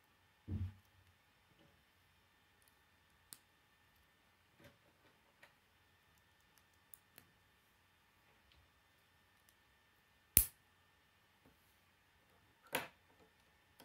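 K'nex plastic pieces clicking as they are snapped together by hand: scattered small clicks, a soft knock about half a second in, and two sharper, louder snaps near the end, the loudest about ten seconds in.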